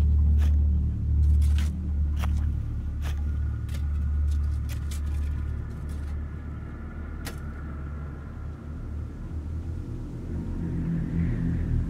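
A deep, steady rumble that eases off in the middle and swells again near the end, with scattered sharp clicks and taps over it, the clearest about seven seconds in.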